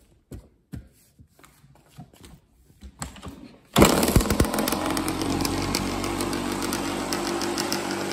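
A Kawasaki KDX200's two-stroke single-cylinder engine being kick-started: a few scattered knocks, then it fires about four seconds in and keeps running steadily.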